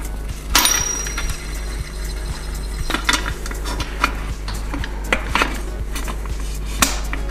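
Metal clicks, clinks and scrapes of a hand-turned bearing press as a BB30 bearing is pressed into a bike frame's bottom bracket. A sharp clink comes about half a second in and another near the end, with lighter ticks between.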